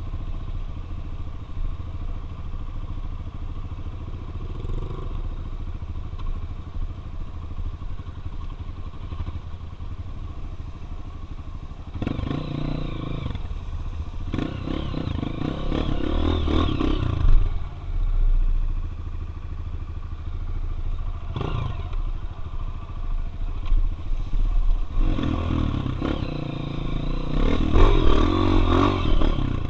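Dirt bike engine running while riding, steady at first, then opened up louder twice: for several seconds past the middle and again near the end, with one sharp knock in between.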